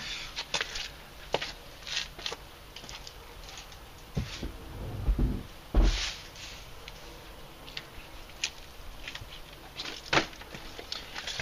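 Scattered clicks, knocks and rustles of things being handled, with a low rumble about five seconds in and a heavier thump just before six seconds.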